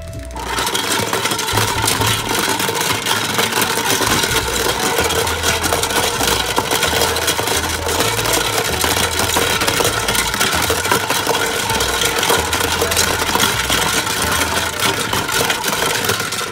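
Toy washing machine running, its small motor whirring as the drum turns with plastic Play-Doh accessories rattling and tumbling inside. It starts about half a second in and cuts off suddenly at the end.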